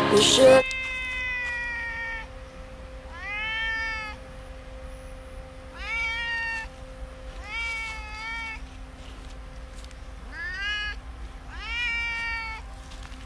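Domestic cat meowing repeatedly, about six drawn-out meows a second or two apart, each rising and then falling in pitch.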